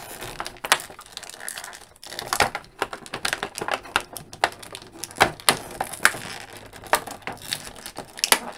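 Small hard-plastic action-figure parts and their packaging being handled: irregular clicks and taps with some crinkling.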